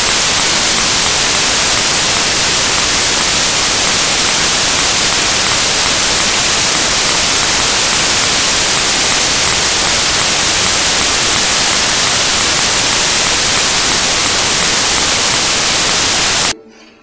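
Loud, steady white-noise hiss like static, with no pitch or rhythm. It drops out suddenly near the end.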